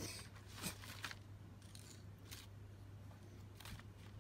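Faint, crisp rustles and clicks of large leaves being handled, a few scattered strokes over a low steady hum.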